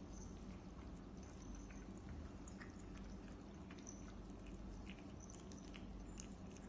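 A cat eating wet food from a metal bowl: faint, irregular small wet ticks of chewing over a steady low hum.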